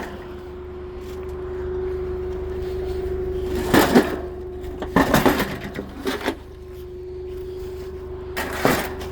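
A steady engine hum, with four short clusters of knocks and clanks, the loudest about four seconds in.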